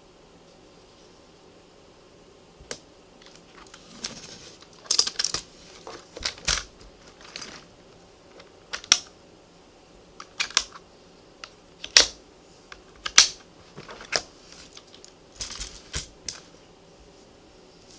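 Keys of a Compaq 6511-VA laptop keyboard being pressed: sharp clicks, some single and some in short quick runs, starting a few seconds in and stopping shortly before the end.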